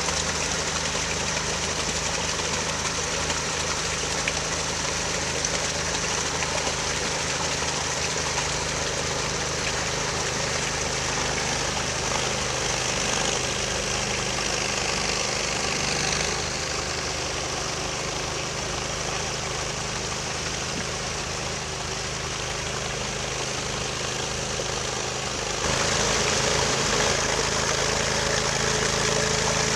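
Amphibious ATV's engine running steadily. It eases off a little about halfway through and picks up again near the end.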